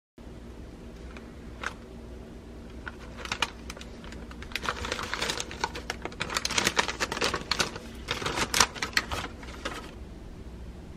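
Kraft paper bag crinkling and rustling as it is handled: scattered crisp crackles that thicken into a dense run about halfway through and die away shortly before the end.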